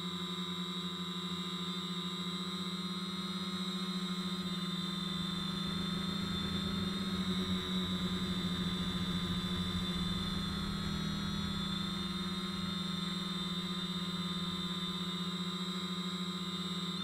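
Quadcopter's electric motors and propellers running with a steady hum and a thin high whine, picked up by the action camera mounted on the craft. A rougher low rush swells in the middle and then settles.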